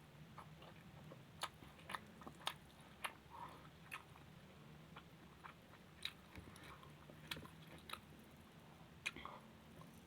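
Quiet close-miked chewing with scattered, irregular wet mouth clicks and smacks, over a faint steady low hum.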